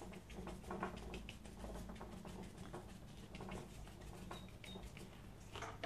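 Faint scratchy brushing of a flat hake brush's bristles on watercolour paper: a quick run of many small strokes and dabs, over a low steady hum.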